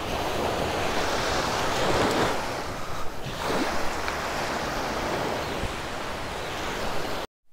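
Small surf breaking and washing up the sand, with wind on the microphone; the sound cuts off suddenly near the end.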